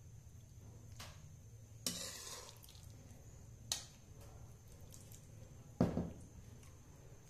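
A metal spoon clinking and scraping against a pan and a plastic plate as creamy pasta is served out: four separate knocks, the second followed by a short scrape, and the loudest a dull thud about six seconds in. A faint steady hum runs underneath.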